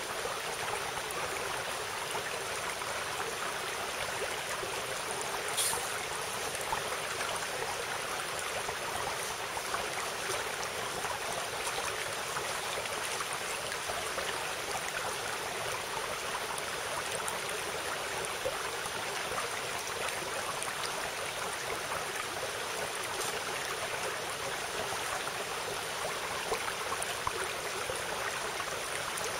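Mountain stream flowing, a steady rushing hiss of water, with a single sharp click about six seconds in.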